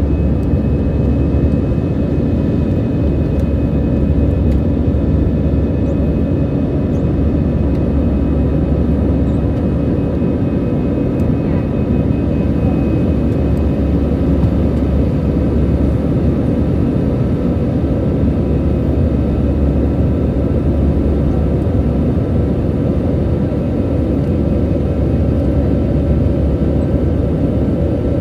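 Airbus A320-214's CFM56 turbofan engines and rushing air heard from inside the cabin during the climb after takeoff: a loud, steady rumble with a constant whine on top.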